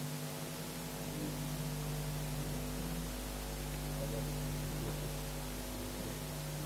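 Steady electrical hum with an even hiss beneath it. Nothing else clearly stands out.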